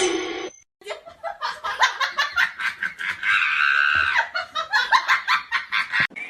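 A person laughing hard in quick bursts, with a drawn-out stretch a little past the middle.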